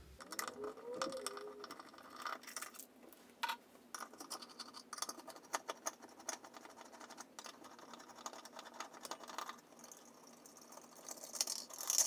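Faint, irregular clicks and scrapes of a Phillips screwdriver turning out the screws that hold a Moen Posi-Temp shower valve's chrome faceplate.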